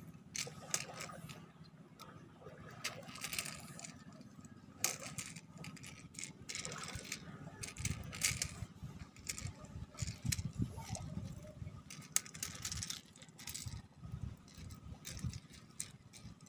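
Hands working a small metal fishing lure and line free of a landed fish: scattered clicks, light metallic rattles and rustling, with dull bumps of handling throughout.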